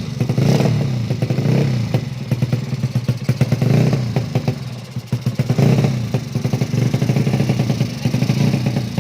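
Unfinished racing motorcycle engine running with an open, fierce-sounding exhaust, the throttle blipped about four times so the revs rise and fall over a fast idle.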